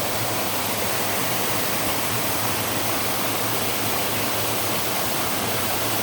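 Waterfall: a steady, even rush of falling water with no break or change.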